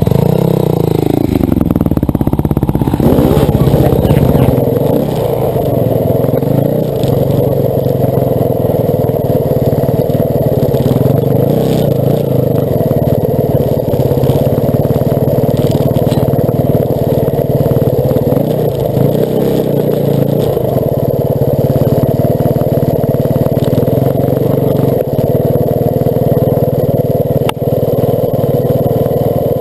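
Dirt bike engine running close to the microphone while riding, its pitch falling over the first few seconds as the throttle comes off, then holding steady.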